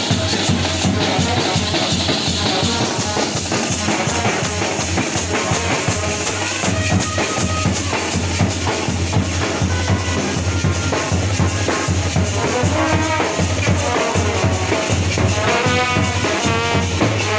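Indian brass band playing: brass horns carrying a tune over a steady drum beat, with the horn lines standing out more near the end.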